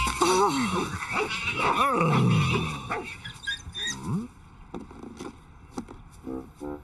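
Cartoon dog growling and whining in a dense stretch of gliding, bending calls that fades after about three seconds, leaving scattered clicks.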